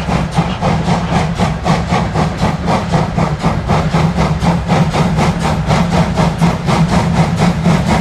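Two German steam locomotives, 41 1144 and 95 1027, working hard with a heavy gravel train at slow speed. They give loud, even, rapid exhaust beats, about five or six a second, over a steady low rumble.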